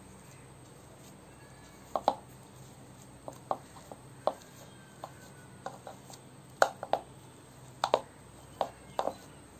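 Boiled potatoes being mashed in a bowl with the bottom of a small steel tumbler: irregular sharp knocks and clicks, about two a second, as the cup presses down and taps against the bowl.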